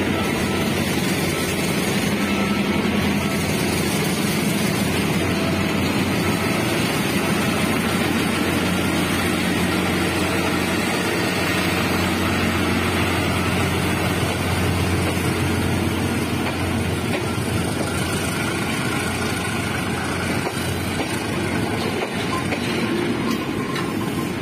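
Diesel locomotive passing with its engine running in a steady low drone, which fades after about two-thirds of the way through as its passenger coaches roll by.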